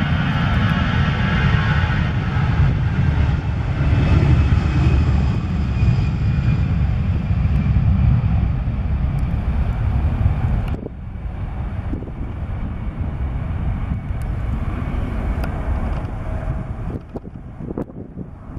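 Airliner engine noise: a loud, low rumble with a whine in the first few seconds that fades. About eleven seconds in it cuts abruptly to a quieter engine rumble.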